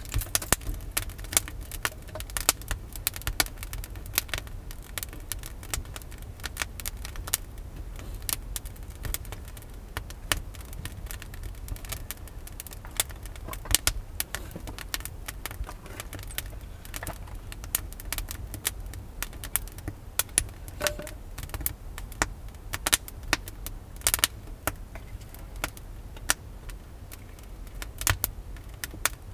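Wood fire crackling in a stone hearth: a dense, irregular run of sharp pops over a low steady rumble, with a few louder knocks as split firewood is laid on.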